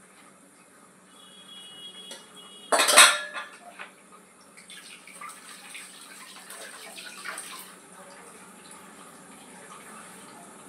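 Dishes being washed at a kitchen sink under a running tap: metal utensils clinking and clattering against each other and the sink, with one loud clatter about three seconds in.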